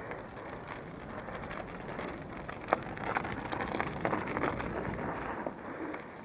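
Bicycle riding over an icy path: steady tyre and rolling noise with a run of crackles and clicks through the middle and one sharp knock about three seconds in, with wind on the microphone.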